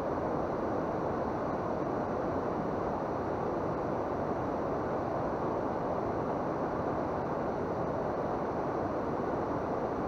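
Steady rush of flowing river water: an even, unbroken hiss with no separate sounds in it.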